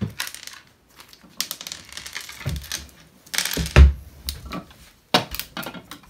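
Crinkling of a small clear plastic bag and clicking of tiny plastic toy food pieces being tipped out and handled on a hardwood floor, with a louder thump about four seconds in.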